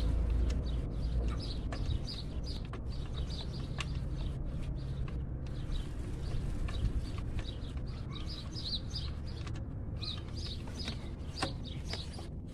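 Small birds chirping again and again, over a steady low rumble, with a few faint clicks scattered through.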